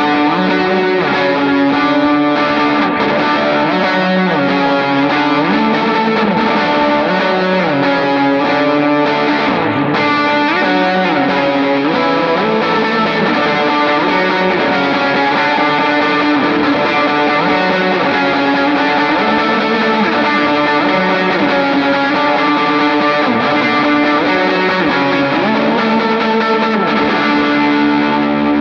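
Electric guitar played through the JET Revelation Reverb pedal set to its Room algorithm, a short, dense room reverb behind the notes. The guitar plays sustained, overlapping notes and chords without a break.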